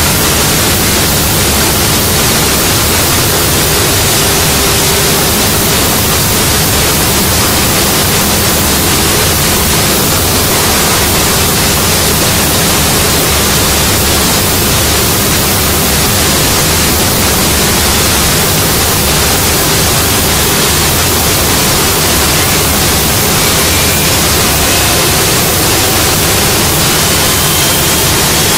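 Three-head CNC door-making router running: a loud, steady rushing noise, with a faint rising whine near the end.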